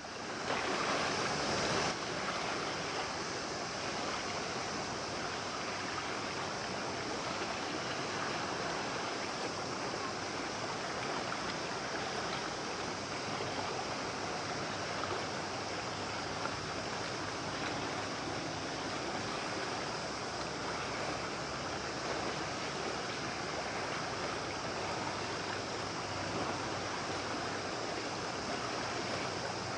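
Steady rush of sea water and waves, with the splashing wash of a small motorboat running fast past the shore.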